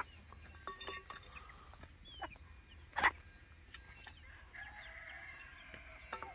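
Chickens clucking and calling while feeding, with many light taps of beaks pecking at a steel feed bowl. A sharp, louder sound comes at the start and another about three seconds in, and a longer drawn-out call rises near the end.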